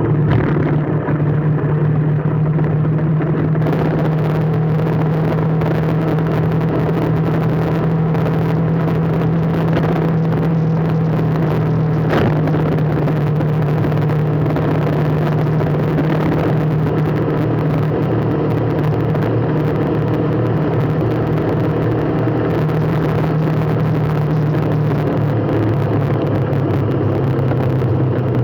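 A motor vehicle's engine running steadily with road noise, a constant low hum.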